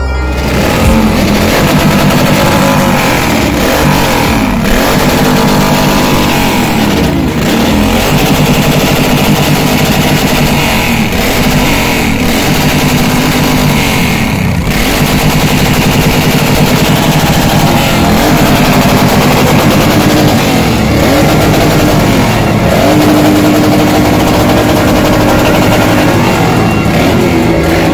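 Several motorcycle engines revving together, loud and continuous, their pitch rising and falling over and over.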